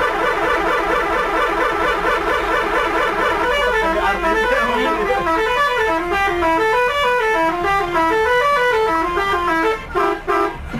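Multi-tone 'telolet' horn of a Scorpion Holiday bus playing a melody: a fast warble of alternating notes at first, then from about three and a half seconds in a stepping tune, ending with a few short blasts.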